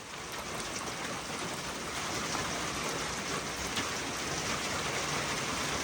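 Steady heavy rain falling, a dense even patter of drops.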